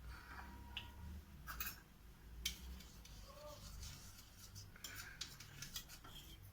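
Faint clicks, taps and rubbing from kitchen utensils and a container being handled over a low hum, with sharp clicks about a second and a half and two and a half seconds in and a quick run of clicks near the end.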